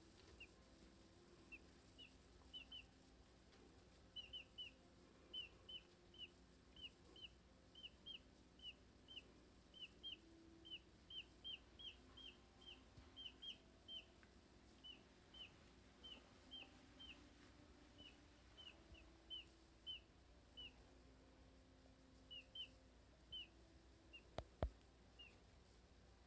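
Baby Dominique chicks peeping: faint, short, high peeps, one to three a second, going on steadily. A single sharp click comes near the end.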